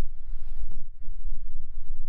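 Low rumbling noise on the microphone of a moving handheld phone, with a single sharp click a little under a second in.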